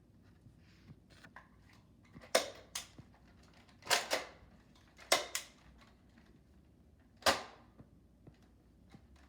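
Toy Nerf blaster mechanism working: sharp snaps, several doubled, coming every one to two seconds, with lighter clicks between them.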